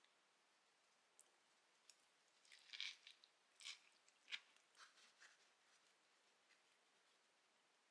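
Near silence with a handful of faint, short crunching clicks in the middle: quiet eating sounds over a meal of a soft bread roll with vegetables.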